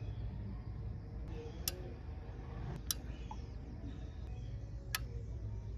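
A few sharp, isolated metallic ticks, a second or two apart, from a hot 203 mm GW refrigerated bicycle disc brake rotor cooling after hard braking. This is the ticking the rider likens to a hot motorcycle engine cooling down, sparse this time because the brake was not used much.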